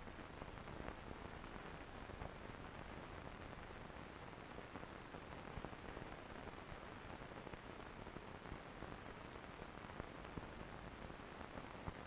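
Steady low hiss with scattered faint clicks and crackle, the noise floor of an old home-movie transfer; no sound of the trains is heard.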